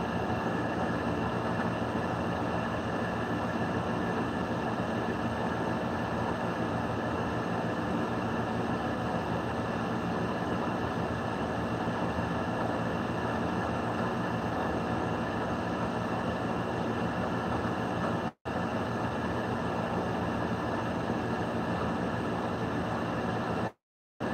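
Steady droning background noise with a faint hum through it, cutting out abruptly twice near the end.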